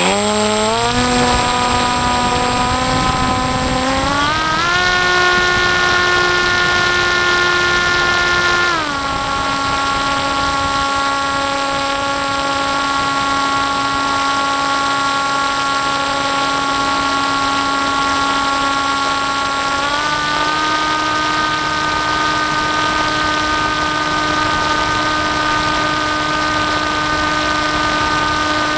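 Electric motor and propeller of an FPV model aircraft, heard through its onboard camera: a steady whine that rises as it takes off, steps higher about four seconds in, drops back about nine seconds in, and steps up again about twenty seconds in as the throttle changes.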